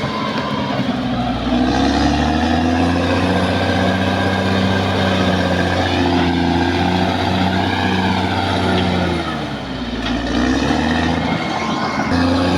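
Caterpillar D6R XL bulldozer's diesel engine running hard under load. It picks up about two seconds in, sags briefly near the end, then comes back up.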